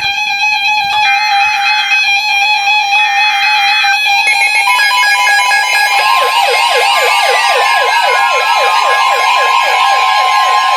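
Weather radios sounding their alert alarms for a severe thunderstorm warning: a steady tone with on-off beeping, joined about four seconds in by more tones. From about six seconds in comes a fast, repeating, siren-like falling whoop, about four a second, over a steady higher tone.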